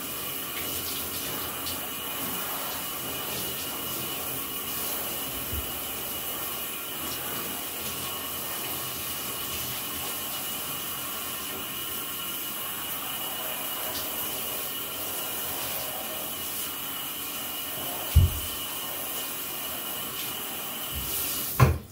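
Handheld shower sprayer running steadily, water spraying onto wet dogs in a bathtub, with a steady high whistle through the water noise. A dull thump about 18 seconds in, and the water shuts off just before the end.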